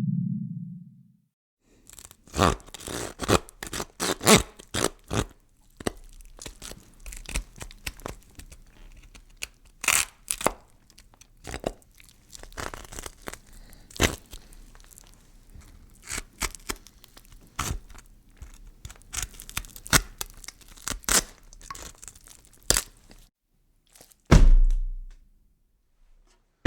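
A saw cutting through bone, in many short uneven strokes, as a horror sound effect. Before it, a low pitched hum cuts off. Near the end comes a heavy thud of a carcass rib cage being dropped.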